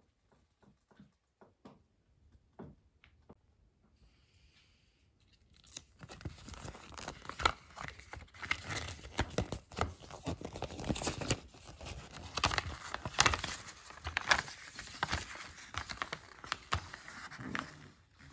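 A folded paper instruction leaflet being unfolded and smoothed flat by hand, rustling loudly and irregularly from about six seconds in. Before that there are only a few faint taps.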